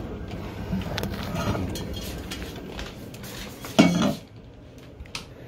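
Small hard objects clicking and clinking as things are handled on a kitchen counter, with one louder knock a little under four seconds in.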